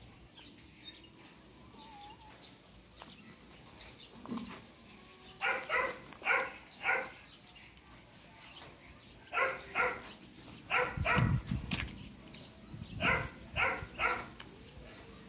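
A dog barking repeatedly in short runs of two to four barks, with pauses between the runs and a brief low rumble about two thirds of the way through.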